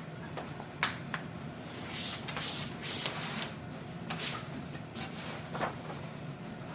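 Handling noises from playpen parts being fitted together: a few sharp clicks and knocks, with a stretch of rustling in between.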